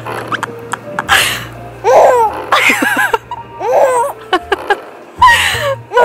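A baby laughing and chuckling in several separate bursts while being swung.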